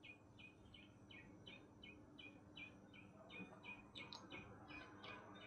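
Near silence, with a bird's faint, even chirps repeating about three times a second, and a few faint small clicks about halfway through.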